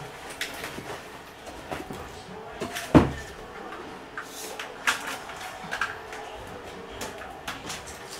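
Knocks, clicks and rattles of household items being moved around and set down while a desk is tidied, with the loudest knock about three seconds in.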